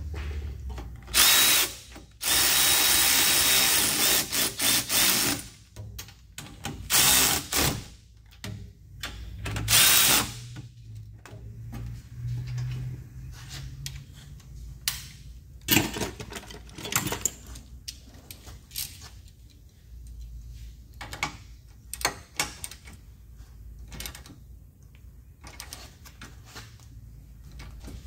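Cordless electric ratchet whirring in several short runs, the longest about two seconds, as it drives in the mounting bolts of a new rear wheel hub bearing. It is followed by scattered clicks and knocks of tools and parts being handled.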